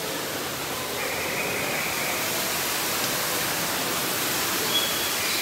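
Steady rushing hiss, even and unbroken, with a couple of faint high whistled tones over it.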